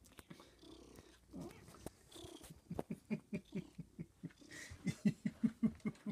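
Domestic cat purring close up in a fast run of short, low pulses, about five a second, starting about three seconds in and growing louder toward the end.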